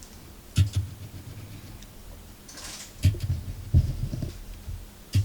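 Handling noise from cardboard firework cakes being moved and turned over: a few dull thumps about half a second, three, four and five seconds in, with a brief rustle between them.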